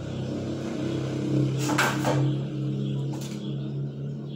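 Dishes and utensils clinking: two sharp knocks just before two seconds in and another about a second later, over a steady low hum.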